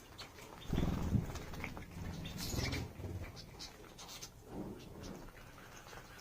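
Canaries bathing: irregular bursts of splashing and wing-fluttering in shallow water, the strongest about a second in and again about two and a half seconds in.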